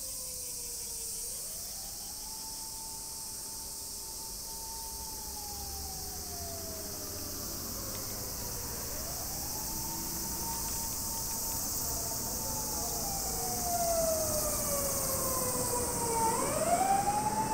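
Emergency vehicle siren wailing in slow cycles: each one rises quickly, holds a high note for a few seconds, then slides slowly down. There are two full cycles and the start of a third, growing louder near the end as the vehicle draws closer.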